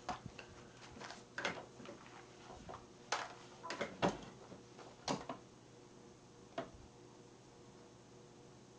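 Handling noises on a laptop: a string of scattered sharp clicks and light knocks, about eight of them, dying away after about seven seconds to a faint steady background.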